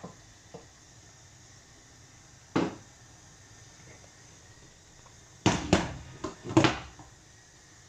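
Cookware and utensils knocking in a kitchen: a few light clicks at first, a single knock about two and a half seconds in, then four sharp clatters in quick succession a little past halfway.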